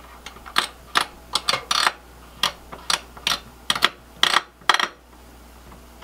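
Screwdriver working the CPU heatsink's screws in a Dell PowerEdge T320 server: an irregular string of about a dozen sharp clicks and short scrapes of metal and plastic, ending about a second before the end.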